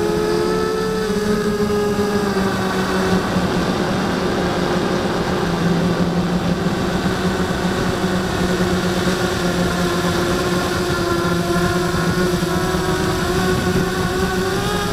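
Blade 200 QX quadcopter's motors and propellers buzzing steadily in flight, the pitch dipping slightly after a couple of seconds and rising again near the end as the motor speed changes.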